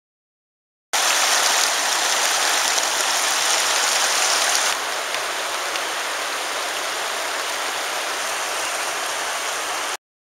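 River rapids rushing over rocks: a steady rush of water that starts abruptly about a second in, drops slightly in level about halfway through, and cuts off abruptly near the end.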